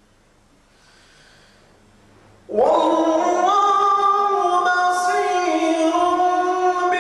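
A man's voice reciting the Quran in a melodic, sung style, coming in suddenly about two and a half seconds in with a rising slide and then holding long notes that step from pitch to pitch.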